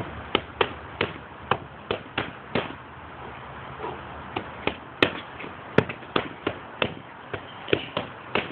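Boxing punches landing as sharp smacks, often in quick one-two pairs and several a second, with a short pause about halfway.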